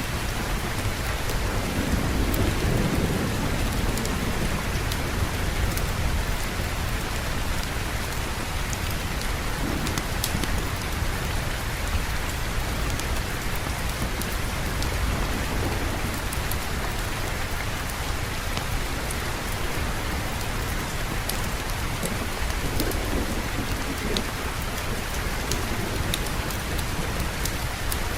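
Steady rain falling, with low, soft thunder rumbling twice, about two seconds in and again near the end.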